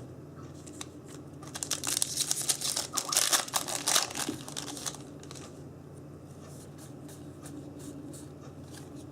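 Foil trading-card booster pack being torn open and crinkled: a cluster of crackly rustling from about one and a half to four and a half seconds in.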